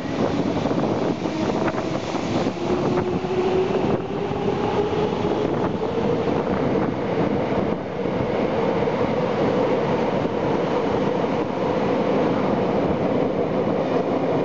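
Tokyo Metro 8000 series subway train pulling out of an underground station and accelerating. Its motor whine rises in pitch over the first several seconds, then holds steady over the continuous rumble of wheels on rail as the cars pass.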